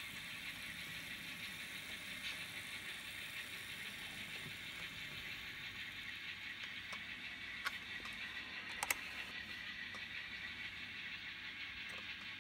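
Model diesel switcher locomotive with no sound decoder running slowly on the track, pulling cars: a steady faint motor whir and wheel noise, with a few sharp clicks from the wheels on the rails about two-thirds of the way through.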